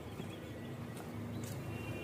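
Eating by hand from steel plates, with two short sharp mouth clicks about a second in and a half second later.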